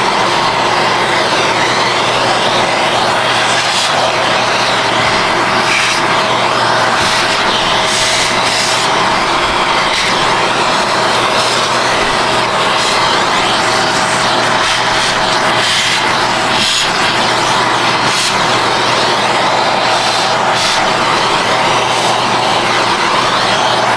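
Vacuum cleaner running steadily at full suction, sucking cat hair and dust out of a treadmill's motor compartment. Short crackles come now and then over the steady noise.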